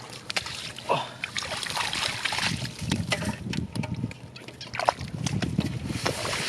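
Splashing and sloshing in shallow muddy water, with many irregular wet splashes.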